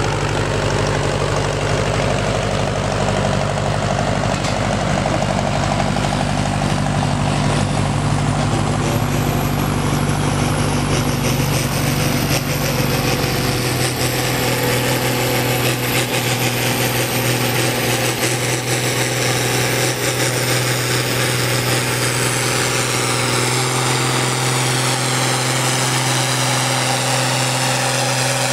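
Farm tractor's diesel engine working hard under load, pulling a weight-transfer sled, running steadily and loud. Its deepest notes drop away about halfway through as the tractor moves down the track.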